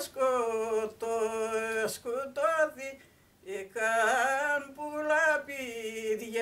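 A single voice singing unaccompanied: slow, drawn-out notes that waver in pitch, with short breaks between phrases and a pause about halfway through.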